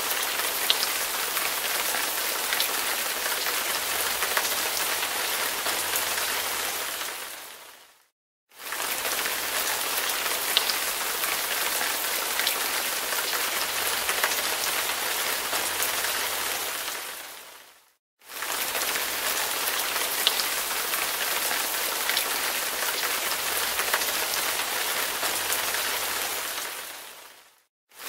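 Steady rain with scattered drop ticks. It fades briefly to silence and back in about every ten seconds, like a looped rain recording.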